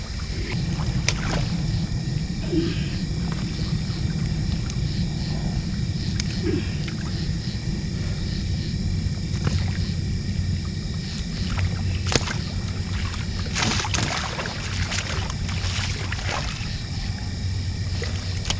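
A steady low drone like a distant boat engine runs under a constant chirring of insects. About two-thirds of the way in, a large blue catfish splashes and thrashes in shallow water over a few seconds as it is let back into the river.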